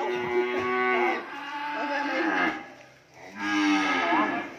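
A cow mooing in two long, drawn-out calls, the second beginning a little over three seconds in.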